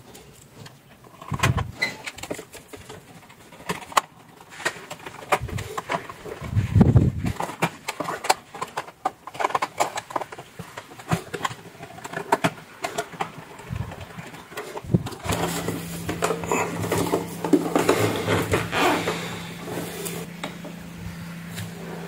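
Irregular clicks, knocks and plastic clatter as a blender's plastic base is handled and its screws are driven with a screwdriver. A steady low hum comes in about two-thirds of the way through and keeps going.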